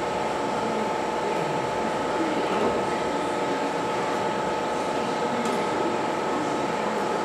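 Electric angle grinder running steadily on steel car body panels, a constant whine over grinding noise.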